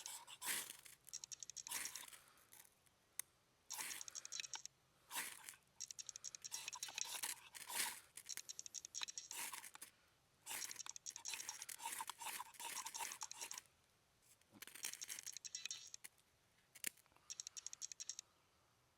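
Half-inch ferrocerium rod being struck to throw sparks onto tinder: repeated scraping strokes in bursts with short pauses between, some with a fast high crackle.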